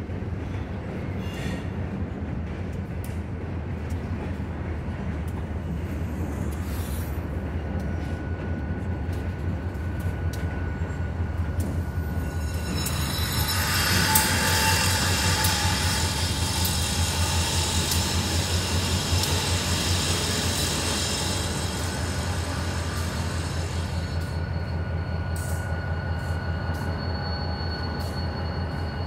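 NYSW Susquehanna diesel locomotives moving slowly through a yard, engines running with a steady low drone. Hiss and a thin high squeal of wheels on the rails grow louder about halfway through as the locomotives pass closest, then ease off.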